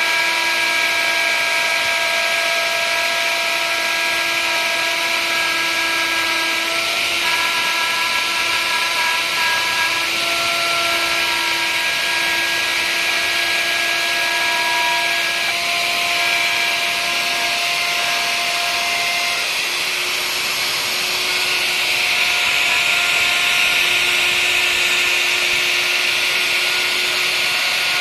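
Electric plunge router running at speed, its bit cutting into a wooden board as it is guided along a pattern. It makes a steady whine over a hiss, with its tones shifting now and then as the cut goes on.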